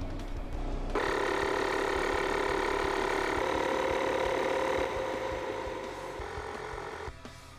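Lokithor jump starter's built-in electric air compressor starting about a second in and running with a steady whine as it pumps up a car tyre. It gets quieter from about five seconds in.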